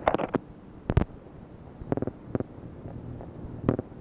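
Phone-line clicks and clunks recorded on an answering machine's incoming-message cassette after a caller hangs up: a handful of irregular clicks over tape hiss, the loudest a low thump about a second in.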